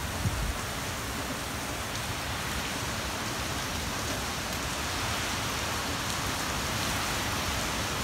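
Heavy typhoon rain and wind making a steady, even rush, with a few low gusts buffeting the microphone at the very start.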